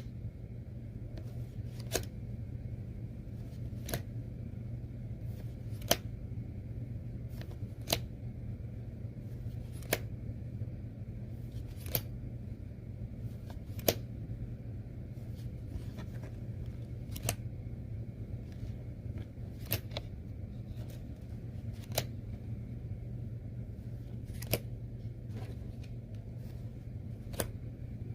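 Trading cards handled and set down one at a time, each making a sharp click, about one every two seconds and less regular later on, over a steady low hum.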